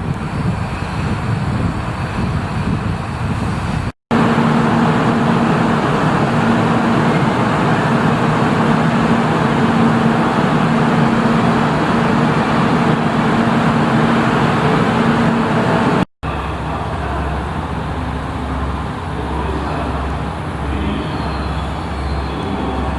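Motor vehicle engines and traffic noise in three abruptly cut stretches. The loudest, middle stretch has a steady engine hum. The last has a low throbbing idle.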